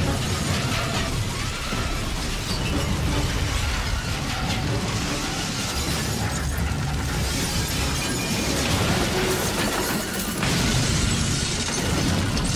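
Film sound effects of a car exploding and crashing down in flames: a continuous loud mix of blasts, crashing metal and shattering glass, with a fresh burst about ten seconds in.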